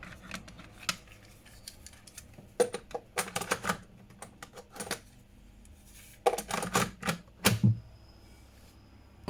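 Plastic clicks and clacks of cassette tapes and a cassette player being handled, in two clusters, with a deeper knock about seven and a half seconds in.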